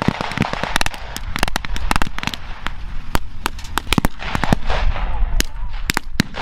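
Battle-reenactment gunfire from blank-firing period rifles and submachine guns: many sharp cracks at an irregular pace, several a second, some overlapping.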